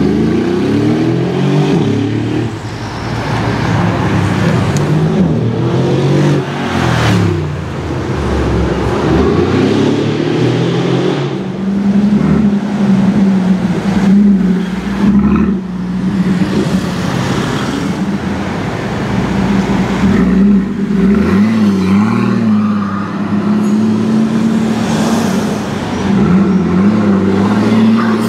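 Mercedes G63 AMG's V8 engine revving and accelerating away, its pitch climbing and dropping through the gears. Later it settles into a steady engine drone with small rises and falls.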